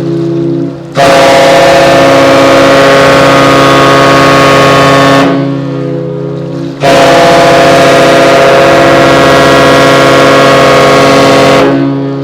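The ship's whistle of the cruise ship Nippon Maru sounding two long, very loud blasts of about four to five seconds each. Each is a deep chord of several steady tones, with the sound ringing on in the pause between blasts.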